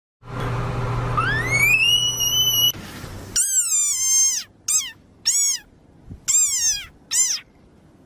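A tree frog's whistling squeal, rising in pitch and then held, over a steady hum. A desert rain frog then gives a string of high-pitched squeaks in about five groups, each squeak rising and falling in pitch, with short pauses between them.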